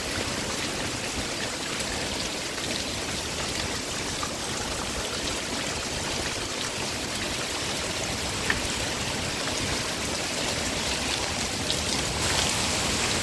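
Heavy rain pouring down steadily, growing heavier near the end, with a single sharp tap about eight seconds in.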